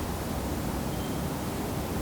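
Room tone of an empty building: a steady, even hiss over a low rumble.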